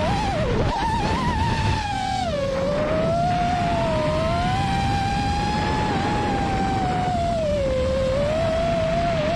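FPV quadcopter motors (Lumenier QAV-S JohnnyFPV 5-inch) whining, the pitch rising and falling with throttle and dipping twice, over a steady rush of wind and prop wash.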